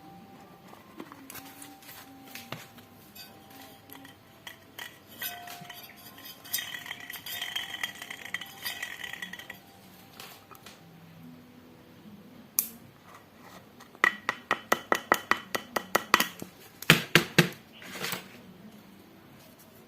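Small metal tools and parts clinking and scraping, with a ringing metallic note. About two-thirds through comes a quick run of sharp taps, roughly eight a second, then a few harder knocks.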